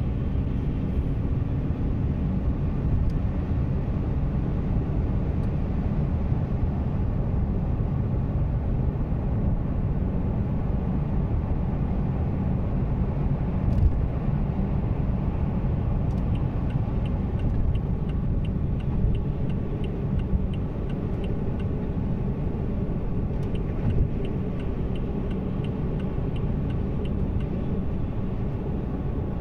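Haval Jolion on the move, heard from inside the cabin: a steady low road and engine rumble. About halfway through, a faint regular ticking starts, about two ticks a second, in two runs with a short break between them.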